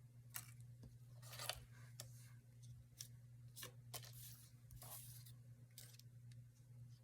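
Faint scattered clicks and brief rustles of paper and craft materials being handled at a work table, over a low steady hum.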